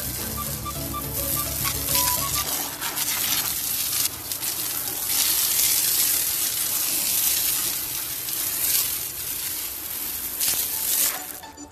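Water spraying hard from a garden hose nozzle onto tiled paving and a wall, a steady hiss that swells and eases. Background music plays under it and stops about two and a half seconds in.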